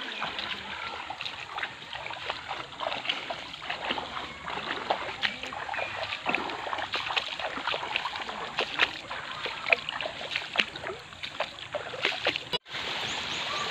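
Footsteps splashing and sloshing through a shallow, stony creek as people wade along it, an uneven run of splashes. Near the end the sound breaks off for an instant, then steady flowing water.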